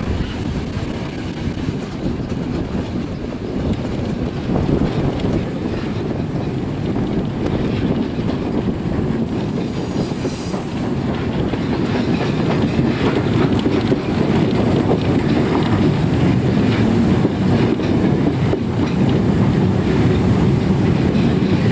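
Train rolling along the track with a steady rumble and wheels clattering over the rails. A faint high wheel squeal comes through briefly around the middle.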